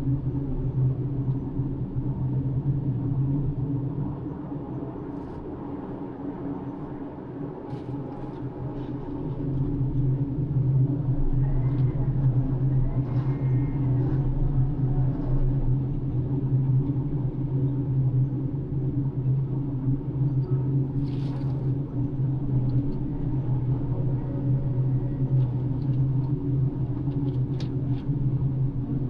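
Floating crane's engine running with a steady low drone, easing off for a few seconds and then working harder again from about ten seconds in, with a few faint clicks and brief whines over it.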